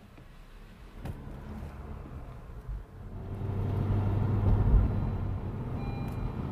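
2020 Honda Civic driving past on the road, its engine and tyre noise building to its loudest about four to five seconds in, then easing off. A sharp click about a second in.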